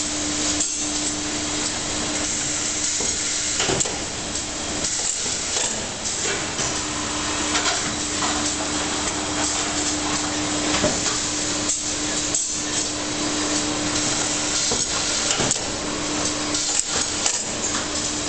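A shrink-film bundling machine with a cardboard-pad inserter running: a steady mechanical hiss and a hum, with sharp knocks and clatter every so often. The hum drops out for about two seconds some four seconds in.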